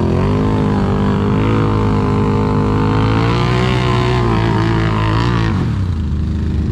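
ATV engine under throttle while riding: the engine note rises at the start, holds with slight wavering, then drops to a lower pitch as the throttle is eased off about five and a half seconds in.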